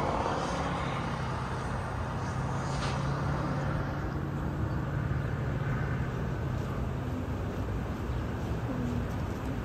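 Outdoor traffic noise: a vehicle's steady low engine hum that fades out about seven seconds in, over a steady rushing background.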